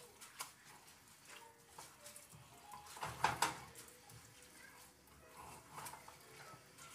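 Spoon stirring and scraping rice and tomato sauce in a nonstick frying pan, with scattered faint clicks and a louder clatter about three seconds in.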